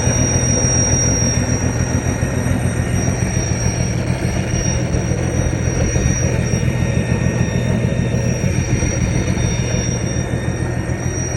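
Ford 300 cubic-inch inline-six in a 1982 F-150 running steadily at idle, with a thin, steady high whistle over the engine that the owner takes for a vacuum leak.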